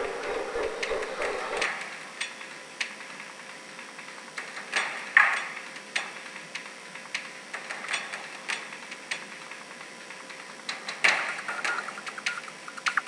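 Light, irregular clicking and ticking, one or two sharp clicks a second, with a louder clattery burst about five seconds in and again near the end.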